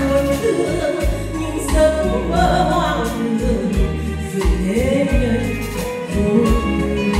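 Woman singing a Vietnamese song into a handheld microphone over a karaoke-style backing track.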